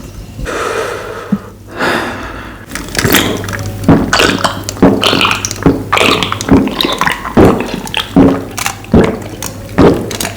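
Gulping down a glass of iced Thums Up cola, with a slurp near the start followed by a steady run of swallows, about one to two a second.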